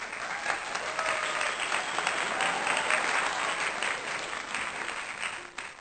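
Crowd applauding, a dense patter of many hands clapping with a few faint voices in it, starting and stopping abruptly.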